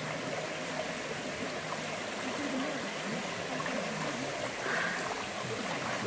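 Mountain stream water flowing over rocks: a steady, even rush.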